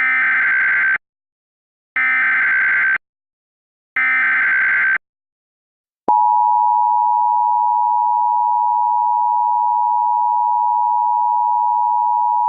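Emergency Alert System SAME header: three one-second bursts of warbling digital data tones, a second apart. About a second after the last burst the EAS two-tone attention signal starts, a steady dual tone held through the rest, announcing the voice alert to follow.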